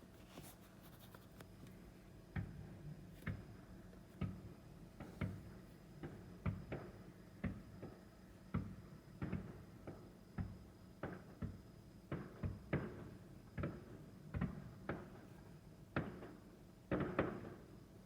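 Fireworks shells bursting in the distance during a finale, a string of sharp booms about one every second, each with a short echoing tail, closing with a dense cluster of bursts and crackle near the end.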